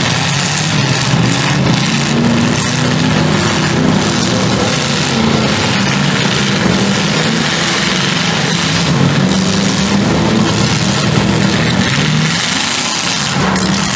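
Several full-size demolition derby cars running and revving their engines together in a steady, loud mix.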